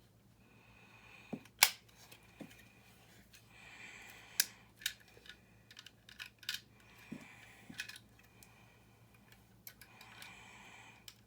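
Plastic building-brick pieces being handled and pressed together: a scattered series of sharp clicks and taps, the loudest about one and a half seconds in, with soft rustling between them.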